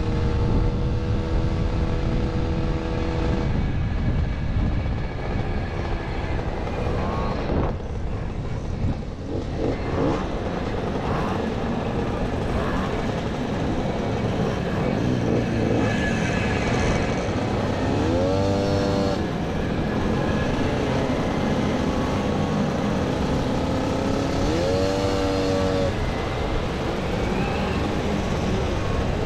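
A pack of classic 50 cc two-stroke mopeds running together at speed. A nearby engine revs up and drops back twice, about two-thirds of the way through and again near the end.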